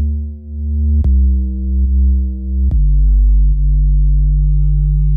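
Electronic background music: sustained low synthesizer notes, changing chord about a second in and again near three seconds.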